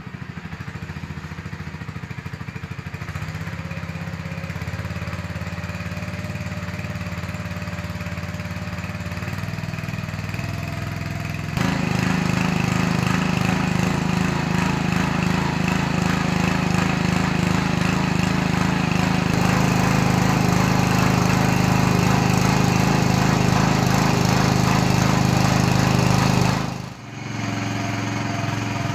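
Ruris 732K petrol garden tiller running steadily under load while tilling soil. The engine gets louder about a third of the way in and drops away briefly near the end before coming back.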